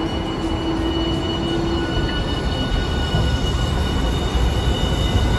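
Hiroden low-floor articulated tram moving slowly past on its rails: steady high electric tones over a low rumble of wheels on track that grows louder toward the end.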